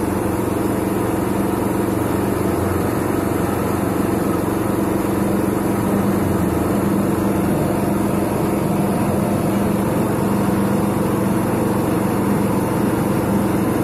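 Silage press machine running steadily: an even, continuous motor drone that holds the same pitch throughout.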